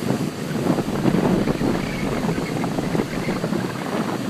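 Wind buffeting the microphone over the wash of breaking surf, gusting unevenly.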